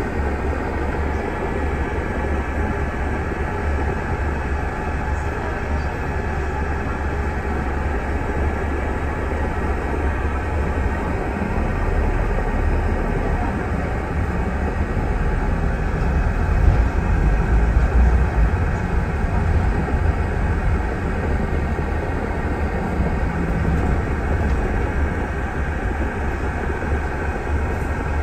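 Steady low rumble of a bus's engine and road noise heard from inside the vehicle. It grows louder about halfway through as the bus gets moving.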